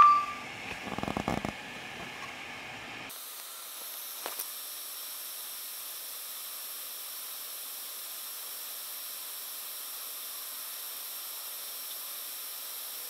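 Steady, even hiss of a quiet room and the recording's own noise while nobody speaks. A short electronic beep sounds at the very start, and a few soft handling knocks follow about a second in.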